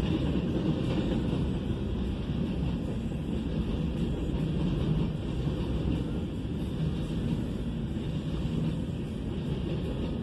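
Freight train of covered hopper cars rolling steadily past, a constant rumble heard from inside a car.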